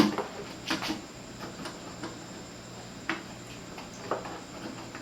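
A few scattered light clicks and knocks of hands handling a cable and power-supply connector while fitting them inside a speaker box, over a faint steady low hum.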